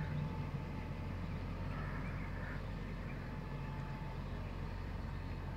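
Tractor engine running steadily at low revs, an even low hum.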